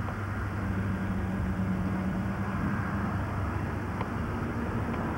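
Steady low hum under a hiss, with no voices: the background noise of an old outdoor home-video soundtrack. There are two faint clicks near the end.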